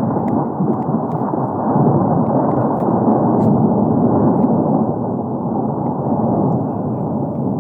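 Thunder sound effect from a vintage film library: a long, continuous rolling rumble that swells and eases, muffled like an old recording, with a few faint crackling clicks.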